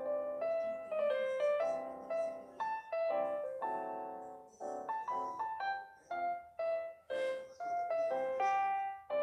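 Background piano music: a lively melody of quick, separate notes with chords.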